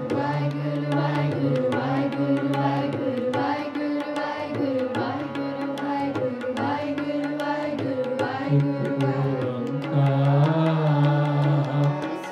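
Sikh kirtan: singing to a harmonium's held chords, with a tabla pair played in a quick, steady rhythm.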